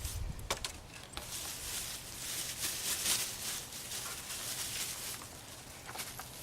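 Rustling and handling noise, with a few sharp clicks, as parts and packaging are handled during a headlight bulb change.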